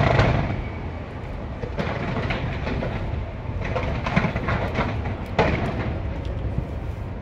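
Fireworks going off: a sharp bang at the start, then continuous rapid crackling and popping over a steady low rumble, with louder clusters of crackle about two, four and five and a half seconds in.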